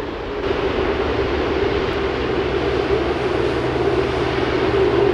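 Airbus A380-841's four Rolls-Royce Trent 970 turbofan engines running as the airliner moves past: steady jet noise with a droning tone, growing louder.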